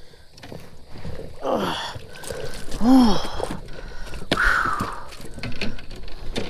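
A man's short wordless exclamations while netting a hooked bass: a falling groan about a second and a half in, then a louder rising-and-falling cry about three seconds in. Scattered knocks from the net and gear against the boat run through it.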